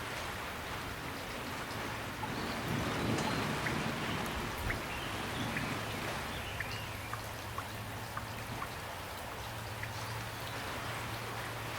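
Steady rain falling, with individual drops ticking through the even hiss.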